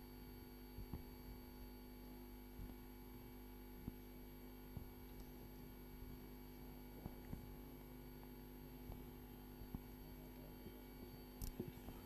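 Quiet steady electrical hum made of several constant tones, with a few faint scattered clicks and a sharper click near the end.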